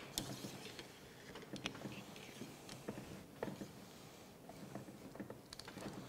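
A cleaning rod pushing a dry cotton patch down a muzzleloader's rifle barrel: faint rubbing of the patch in the bore with scattered light clicks and taps of the rod. This is the dry-patching step that wipes solvent and loosened fouling out of the bore.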